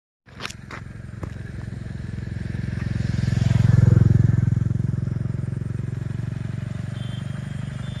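A motor vehicle engine hums past, getting louder to a peak about four seconds in and then fading. A few knocks from the phone being handled come near the start.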